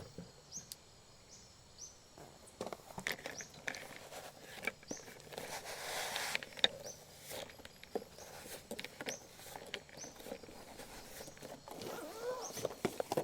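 Camping gear being handled and set up: scattered clicks and knocks, with a stretch of rustling about five to seven seconds in and one sharp knock near its end.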